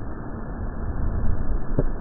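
Wind buffeting the camcorder microphone: a low, uneven rumble, with a brief thump near the end.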